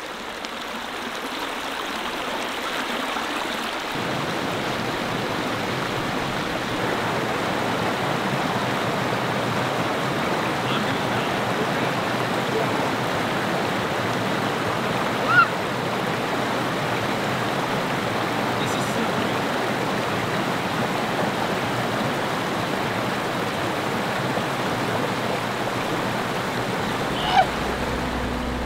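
Steady rush of flowing stream water, swelling over the first few seconds and then holding even. Two short, high chirps cut through it, one about halfway through and one near the end.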